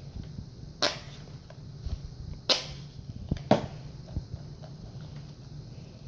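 Plastic gaming headset being handled, its parts giving three sharp clicks about a second apart, with light rustling between them.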